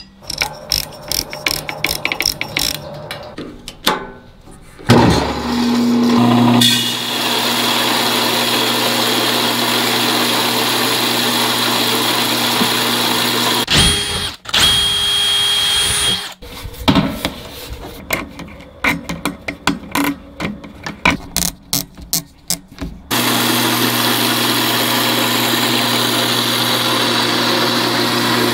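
Electric grain mill cracking whole kernel corn: the motor starts with a rising whine about five seconds in and then runs steadily. A cordless drill runs briefly about halfway through, with clattering and clicks of parts being handled before and after.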